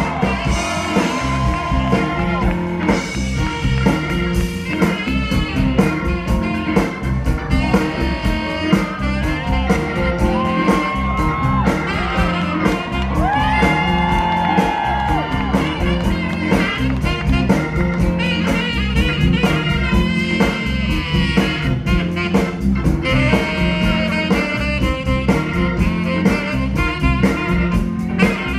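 Live blues band with a horn section playing an instrumental number over a steady drum beat, with electric guitar and held horn lines.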